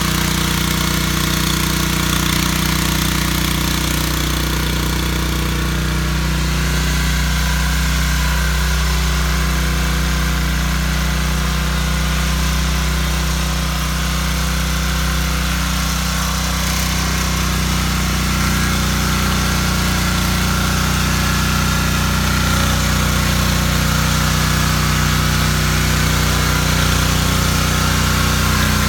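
Petrol rotary tiller's engine running steadily at an even speed.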